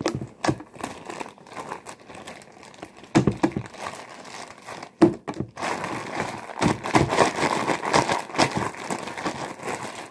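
A plastic zip-top bag crinkling and rustling as hands squeeze and peel sticky slime out of it: irregular crackles, busier and louder in the second half.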